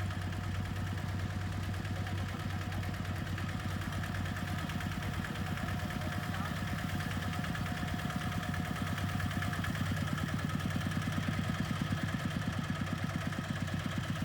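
Kubota RT140 single-cylinder diesel engine running steadily with a fast, even chugging, a little louder about ten seconds in.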